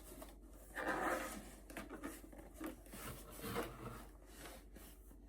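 Rustling and handling of packaging as a handbag is unwrapped from its box, in irregular swells, the loudest about a second in.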